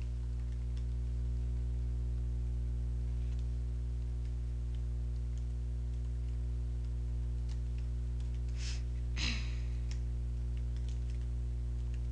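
Computer keyboard typing: scattered light key clicks over a steady low electrical hum, with a louder short clatter about nine seconds in.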